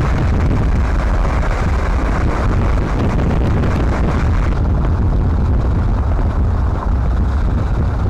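Wind buffeting the microphone with road rumble from a moving vehicle: a loud, steady, low rush. About halfway through the hiss above it drops away and the sound turns duller.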